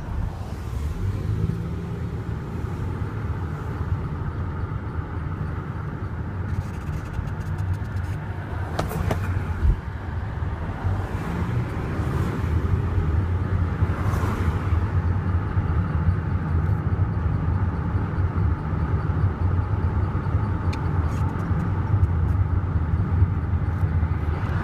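Creaking heard over a steady low rumble, with a few sharp clicks or knocks about nine to ten seconds in.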